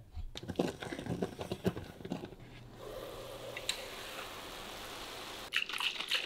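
Ground meat frying in a skillet: a run of crackles and crunchy clicks, then a steady sizzle from about three seconds in.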